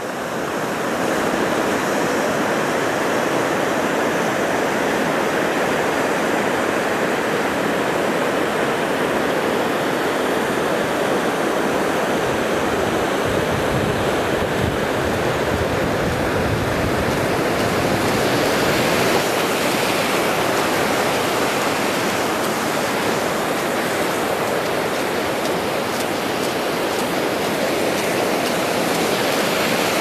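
Icy waterfall running: a steady, even rush of falling water.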